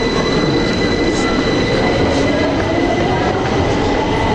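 London Underground train at the platform, its motor whine rising slowly and steadily in pitch as it gathers speed, over steady rumbling train noise.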